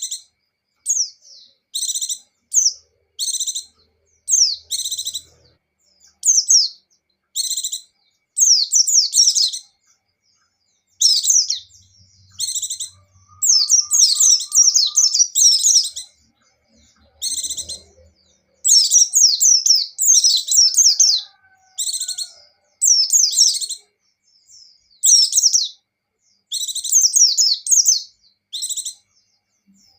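White-eyes (pleci) singing in short, rapid, high-pitched twittering phrases of quick down-slurred notes, each under about a second and a half. The phrases repeat again and again with brief pauses between them.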